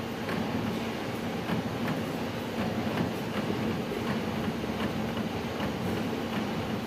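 Amada Vipros 358 King turret punch press running: a steady machine hum and clatter with faint, irregular clicks through it.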